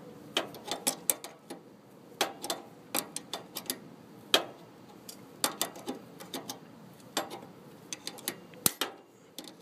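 Adjustable wrench clicking against a nut and the steel brake linkage of a lawn tractor as it is fitted and turned in short strokes. The sound is irregular sharp metallic clicks, two or three a second.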